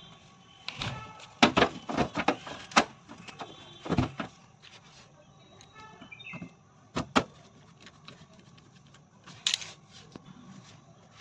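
An irregular series of sharp knocks and clicks, as of metal and plastic parts and tools being handled during washing machine repair work, with short faint whirring or squeaking tones in between.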